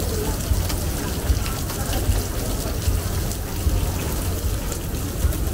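Steady rain falling, with many fine drop ticks, as on an umbrella overhead. A continuous low rumble runs underneath.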